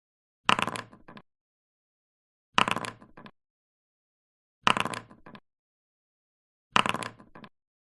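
Dice thrown and clattering to a stop: a sharp first hit, rattles that fade, then one last small click. The same roll repeats four times, about every two seconds, with dead silence between.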